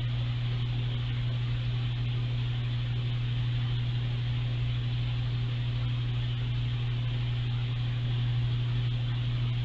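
Steady low machine hum with an even hiss over it, unchanging throughout, from equipment running in a lab.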